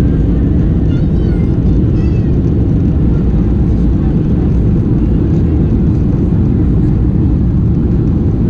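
Steady low rumble of a Boeing 737-800's CFM56 jet engines and rushing airflow, heard inside the passenger cabin.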